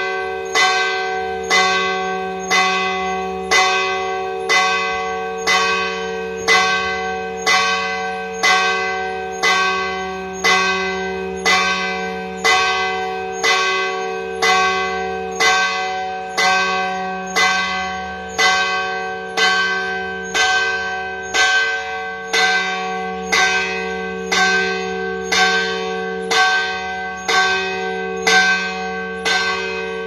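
Church bell tolling steadily, struck about once a second, with its deep hum ringing on between strikes.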